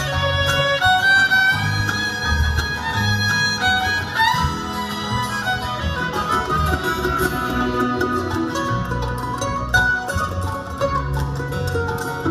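Bluegrass band playing an instrumental break, a fiddle carrying long held notes over guitar and a steady bass.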